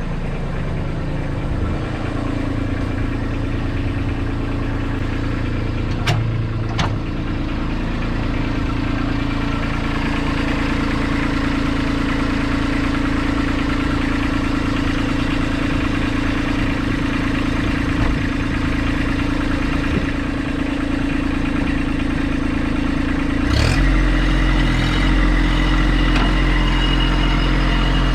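An engine running steadily at low speed, with two sharp clicks a few seconds in and a deeper, heavier note from near the end.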